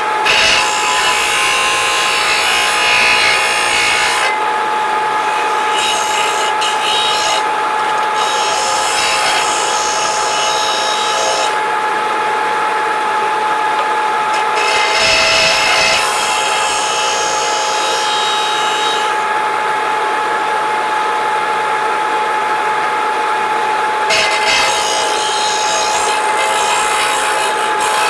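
Power grinder running with a steady whine while a steel chainsaw bar is pressed against its abrasive surface, a harsh rasping that comes and goes in several passes of a few seconds each as the bar is pushed on and eased off. This is the bar's rails being ground down until both sides are level for the chain to ride in.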